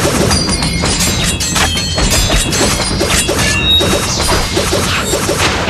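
Sword-fight sound effects: a rapid string of clashing blades and crashing impacts, some with a brief metallic ring, over dramatic background music.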